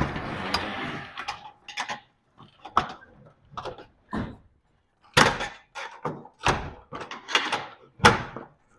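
Metal clanks and knocks from old garage door rollers being popped out of the steel vertical track. A sharp clank and about a second of rattling scrape come first, then scattered light knocks, then several loud clanks in the second half.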